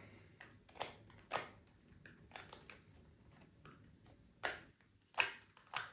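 Light clicks and taps of small mini mating nuc frame parts being handled on a workbench: about five sharper taps spread apart, with fainter clicks and rustles between.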